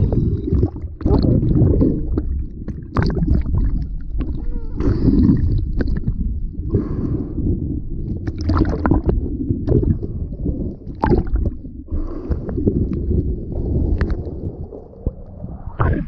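Lake water sloshing and gurgling around a half-submerged action camera. The sound is muffled and deep, broken by many sharp little splashes and knocks of water against the housing.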